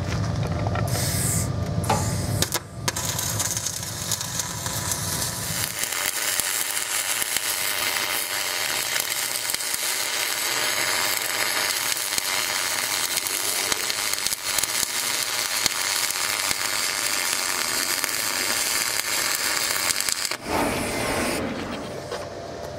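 Dual-shield flux-cored wire welding arc crackling and sizzling steadily as a bead is laid, stopping a couple of seconds before the end. A low hum runs under it for the first several seconds.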